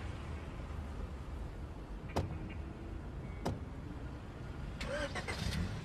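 Mercedes-Benz police van's engine running low and steady as it pulls up, with two sharp clicks about two and three and a half seconds in and a few short knocks near the end.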